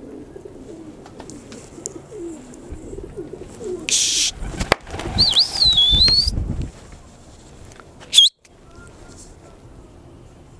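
A flock of young domestic pigeons cooing softly, then taking off together with a loud burst of wing flapping about four seconds in. A wavering high whistle sounds over the takeoff. It fades to faint background after about eight seconds.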